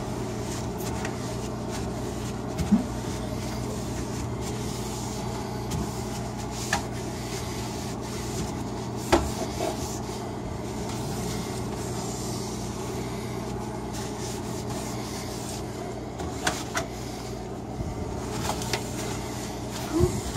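Damp melamine sponge (a generic magic eraser) rubbing and scrubbing over a refrigerator's glass shelf and plastic crisper drawer, over a steady low hum. A few sharp knocks of hand or pad against the plastic come through, the loudest about three and nine seconds in.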